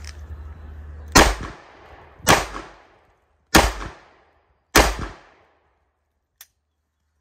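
Four shots from a semi-automatic pistol, a little over a second apart, each trailing off in a short echo.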